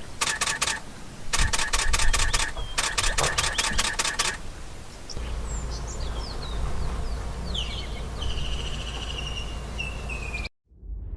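Three bursts of a rapid, pulsing animal call in the first few seconds, then scattered bird chirps and a high trill over a steady low rumble, cutting off abruptly near the end.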